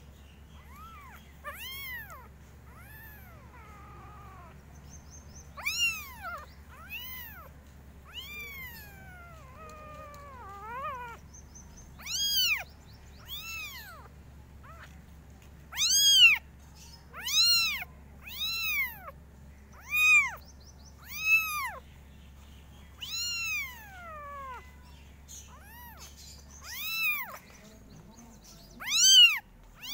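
Very young kittens mewing over and over, each call a high cry that rises and falls in pitch. The calls come sparsely at first, then louder and close together, about one a second, in the second half.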